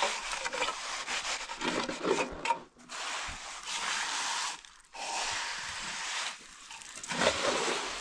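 A steel trowel scraping across wet, gravelly concrete as it is spread and smoothed on top of a block wall, in a series of long scraping strokes each lasting about a second.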